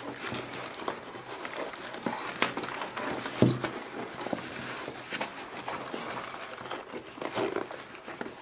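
Rustling and scraping of a fabric tactical sling bag being handled as a pair of glasses is pushed into one of its pockets, with small clicks throughout and a thump about three and a half seconds in.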